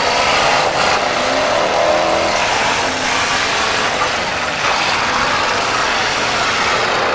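Several demolition-derby cars' engines running and revving together, a steady mechanical din.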